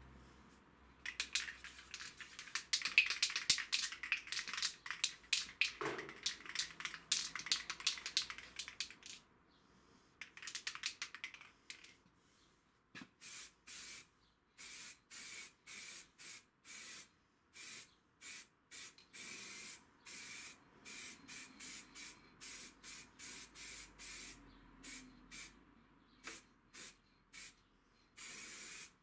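Aerosol spray paint can spraying in many short bursts, some twenty of them in the second half. Before that comes a stretch of fast rattling clicks, like the can being shaken.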